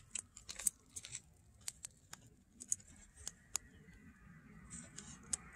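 Footsteps of a woman and a small dog on grit-strewn asphalt: faint, irregular light clicks and scuffs. A soft hiss builds near the end.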